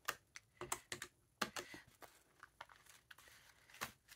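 Buttons of a plastic desk calculator being pressed: a loose string of soft, irregular clicks as a cash total is entered. Paper banknotes are handled in between.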